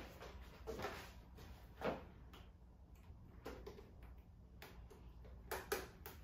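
Faint, scattered footsteps on a hard plank floor: a few soft knocks and taps at irregular intervals, a pair close together near the end.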